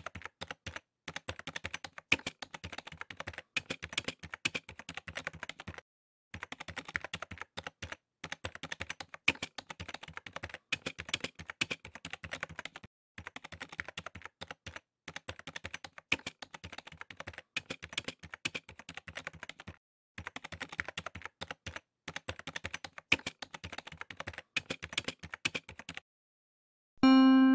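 Rapid computer-keyboard typing: fast clicking in runs of a few seconds with short pauses between them. The typing stops about a second before the end, and a chiming musical tone comes in at the very end.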